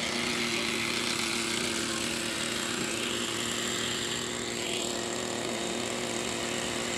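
Ikarus Eco 8 electric model helicopter flying: its electric motor, which runs without ball bearings, and its spinning rotors make a steady whirring hum with two steady low tones, and the pitch rises briefly about four and a half seconds in.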